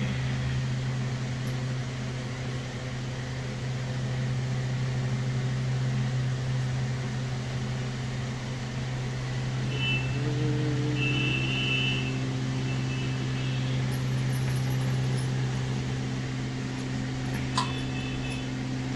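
Steady low electric-motor hum, with one sharp knock near the end.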